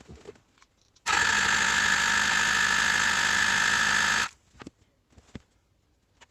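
Honda MC14E 250 cc inline-four being spun over on its electric starter for about three seconds without firing, as when cranking for a compression reading; it starts and stops abruptly, with a few light clicks before and after.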